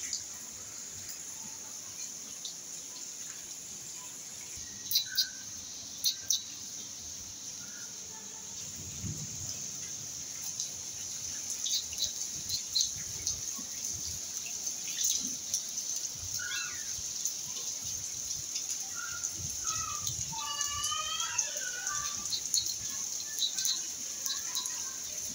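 Steady rain hiss with sharp drips, and a run of short, high chirping calls in the second half.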